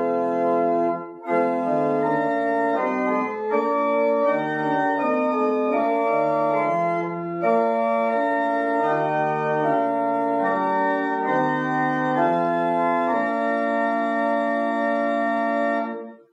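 Organ playing slow, sustained chords over a moving bass line, the chords changing about once a second, with a short break about a second in; the music stops just before the end.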